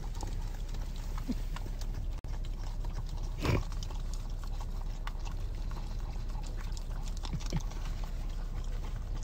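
Dogs licking and lapping ice cream from a plastic cup: a run of small, irregular wet tongue clicks over a steady low hum, with one louder brief noise about three and a half seconds in.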